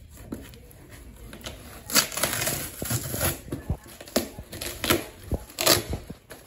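Cardboard shipping box being opened by hand: packing tape torn off and the cardboard flaps pulled open. This makes a run of sharp crackles, rips and scrapes, starting about two seconds in.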